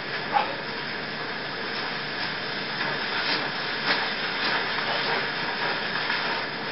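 Steady background hiss, as from an old videotape recording, with a few faint knocks.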